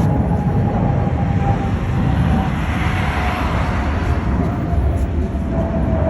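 Aircraft flying past: a steady rumble with an engine whine slowly falling in pitch, the noise swelling to a peak about halfway through.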